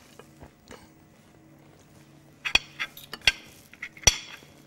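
Metal utensils clinking against a plate and ring mould while asparagus strands are twirled into it. A few soft taps come first, then three sharp clinks a little under a second apart in the second half, over a faint low hum.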